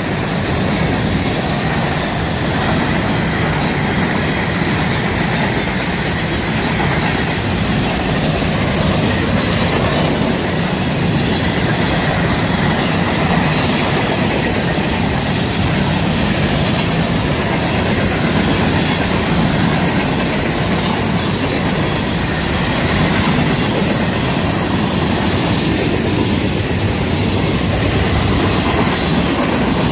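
Florida East Coast Railway freight train's cars rolling past at speed, a steady, loud noise of steel wheels running on the rails.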